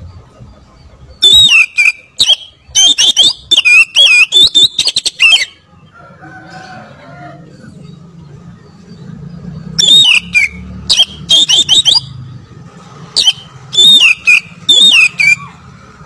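Oriental magpie-robin singing loudly in three runs of rapid whistled notes mixed with sharp clicking, rasping notes, the fierce bursts that keepers call 'ngotot' or 'tembak'. The runs are separated by pauses of a few seconds.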